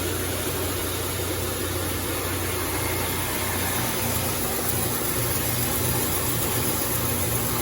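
Shin Nong rice milling machine, driven by a single-phase electric motor, running steadily as it mills red rice: an even, unbroken machine noise with a low hum.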